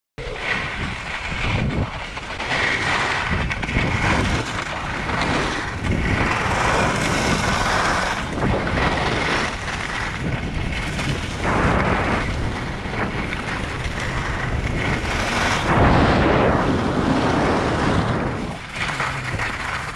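Wind buffeting the camera's microphone, with skis scraping and hissing over groomed snow on a downhill run. The rumble and hiss rise and fall in waves.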